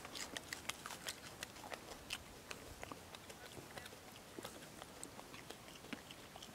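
A Barbary macaque biting and chewing a piece of sweet potato close by: a steady run of faint, quick, irregular clicks.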